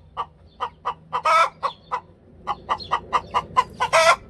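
Domestic hen cackling: a fast run of short clucks with two longer, louder squawks, one about a second in and one near the end. It is the loud cackle that the owner takes as the hen announcing a freshly laid egg.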